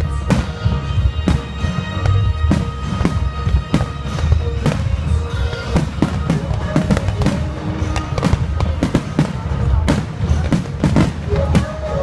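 Fireworks bursting in quick succession, many sharp bangs close together, over music playing along with the show.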